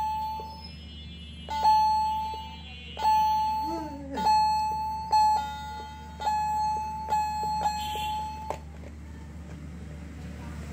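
Toy electronic keyboard played one key at a time: about ten beeping notes, mostly the same high note, each starting with a plastic key click and fading quickly, stopping about eight and a half seconds in.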